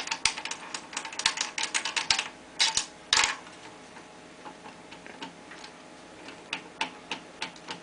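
Small metal clicks and rattles from the Studer C37 tape recorder's head block being handled and worked loose from the deck. There is a quick run of clicks over the first three seconds or so, then scattered single ticks.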